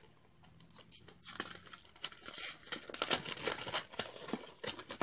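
Plastic toy packaging crinkling and tearing as it is worked open by hand. It starts faint about a second in and grows busier and louder.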